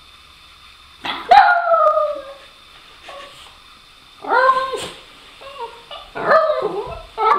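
Small dog howling to beg for her ball: three drawn-out calls that fall in pitch, about a second in, near the middle and near the end, with short quieter whines between them.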